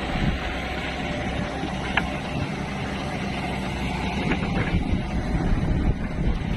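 Backhoe engine running steadily under work, with a sharp click about two seconds in and a few more short clicks a little after four seconds.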